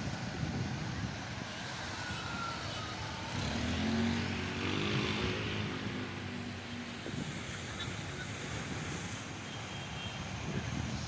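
Traffic and road noise on a wet city street: a steady rush of tyres and wind, with a pitched engine hum louder for a couple of seconds about four seconds in.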